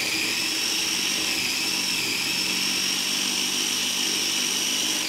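Electric mini chopper running continuously with a steady high whine, its blade churning a thick tempeh and roast vegetable burger mix. The chopper is overloaded: too small for this amount of mix.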